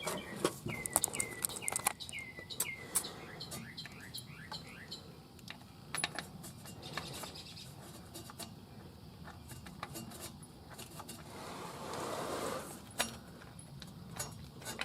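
Scattered light clicks and taps of hands and small metal parts being handled under a truck while grime is cleaned from around a transmission's reverse light switch bore, with a brief rubbing sound about twelve seconds in. A bird chirps several times in the first few seconds.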